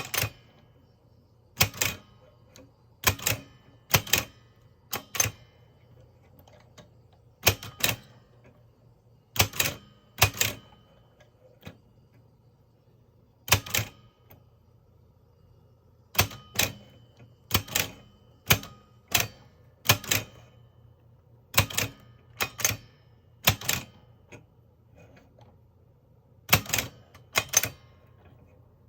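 Mignon No. 4 index typewriter printing one character at a time: sharp single clacks at an uneven pace, sometimes two in quick succession, with pauses of a second or two between them as each letter is picked on the index with the pointer before the print key is pressed.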